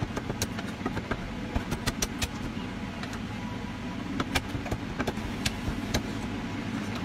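Chinese cleaver chopping roast duck on a thick wooden chopping block: sharp, irregular knocks in two runs with a pause in between, over a steady low hum.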